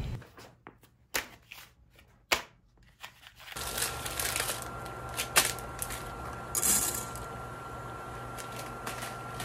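A plastic spaghetti packet crinkles and clicks as it is handled, with a few sharp crackles. From about three and a half seconds, a large pot of water at a rolling boil on a cooktop gives a steady seething noise with a thin high whine. There is a sharp click, then a brief rustle as the packet is opened.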